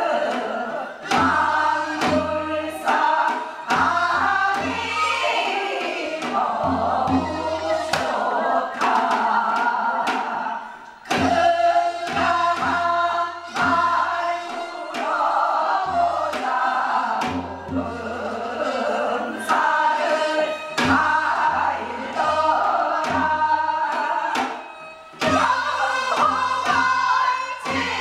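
A chorus of singers performing a Korean folk song together, with regular drum strokes keeping the beat.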